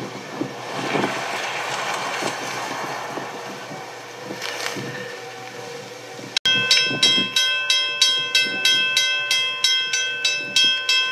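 A train running through deep snow, with a noisy rushing rumble. After an abrupt break about six seconds in, a sustained multi-note horn chord sounds over a sharp ringing beat about three times a second.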